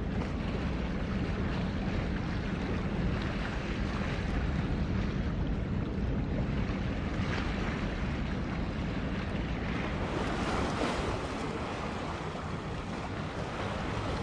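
Wind rushing on the microphone over water noise, with a steady low engine drone from passing ships that weakens in the second half.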